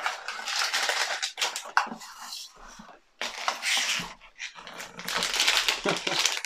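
Foil blind-bag wrappers crinkling and tearing, with cardboard blind boxes being handled, in irregular rustles that drop away briefly about three seconds in.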